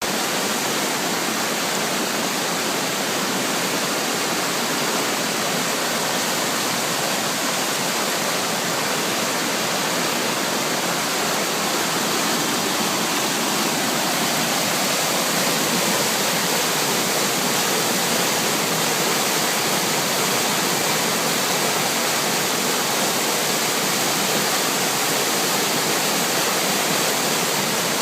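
Floodwater rushing down a normally dry stream bed in flash-flood spate, a steady loud roar of fast water.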